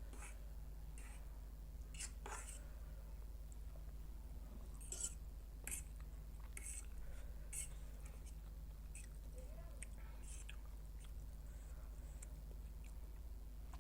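A person chewing food with soft, irregular wet mouth clicks and smacks, over a steady low electrical hum.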